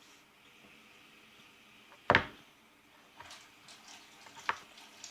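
Slime squelching as it is pressed down in its tub, letting out one short, loud fart-like burst about two seconds in and a smaller squelch near the end.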